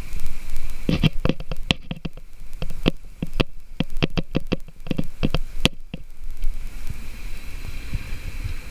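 A run of irregular sharp clicks and knocks from fishing gear as a landing net is worked to land a small perch. They stop a little after halfway, leaving a steady low rushing noise.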